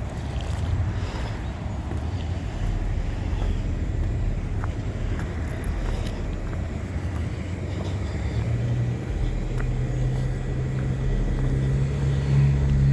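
A car's engine and road noise, a steady low rumble with an engine hum that grows stronger in the last few seconds.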